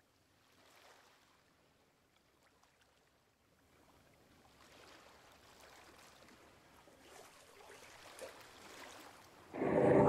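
Gentle water sound, like lapping sea water, faint at first and slowly growing louder. A sudden loud sound breaks in near the end.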